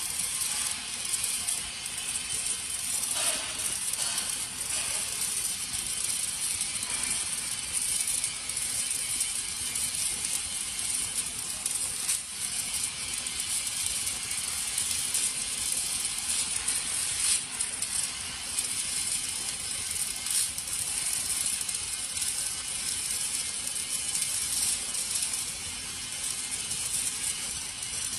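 MIG (gas metal arc) welding arc running, a steady dense crackle of rapid fine pops.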